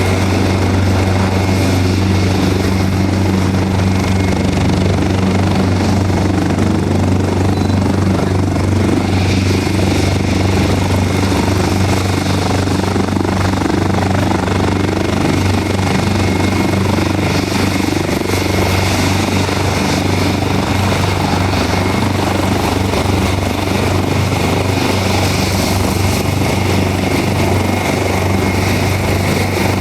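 Leonardo AW189 twin-turbine helicopter running steadily: a low, even rotor drone with a thin turbine whine above it.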